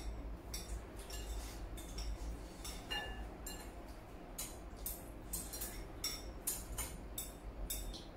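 Chopsticks clinking against ceramic rice bowls while eating: an irregular run of light clicks, each with a brief high ring.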